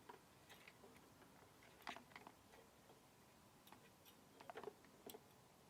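Near silence with a few faint clicks and crackles of a rubber fuel line and its inline filter being handled and routed.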